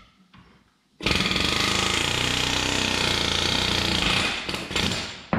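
Pneumatic air hammer hammering against the steel front-axle steering knuckle of a John Deere 6400 tractor. It starts abruptly about a second in and runs in one steady, loud burst of about three seconds, then trails off in short bursts and ends with a sharp knock.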